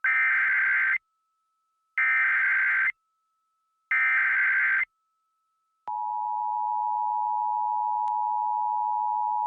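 Emergency Alert System SAME header: three one-second bursts of warbling digital data tones, about a second apart. About six seconds in, the steady two-tone EAS attention signal starts and holds. Together they open a broadcast emergency alert, here a flash flood warning.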